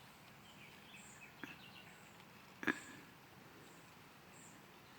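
Faint birds chirping in the background, with a small click about one and a half seconds in and a sharper, louder click a little before three seconds in.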